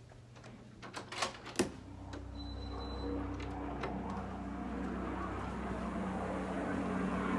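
A wooden front door's lock and latch clicking a few times as it is unlocked and pulled open. After that comes a steady outdoor background with a low hum.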